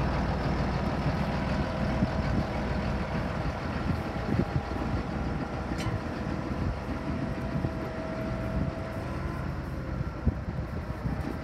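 Steady low rumble of vehicle traffic, with a faint whine that comes and goes and a single sharp click about six seconds in.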